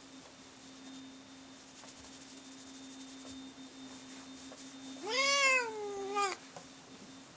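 Domestic cat giving one drawn-out meow about five seconds in, rising in pitch and then sliding slowly down over a little more than a second.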